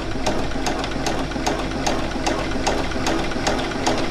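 Domestic sewing machine stitching free-motion at a steady speed with a darning foot, its motor humming under an even run of needle clicks. It is sewing cable stitch: thick thread wound in a drop-in bobbin with no bobbin tension.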